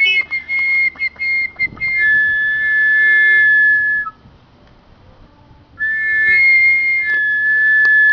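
Boxer puppy making a high, whistle-like whine: a string of short squeaks, then a long held note that stops about four seconds in, and another long note starting nearly two seconds later.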